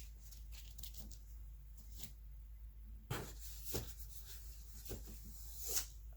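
Hardcover books being handled and lifted out of a cardboard box: scattered rustles and light knocks of cardboard and book jackets, busier from about halfway through.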